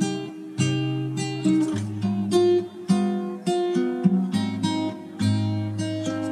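Background music: acoustic guitar strumming chords, about two strums a second.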